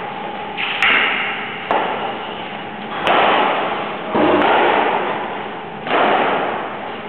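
Badminton rally: racket strings hitting the shuttlecock every second or so, each stroke followed by a long echo in the hall.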